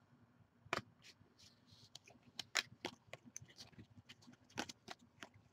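Faint, irregular clicks and flicks of Panini Prizm basketball cards being slid off one stack onto another while flipping through a pack.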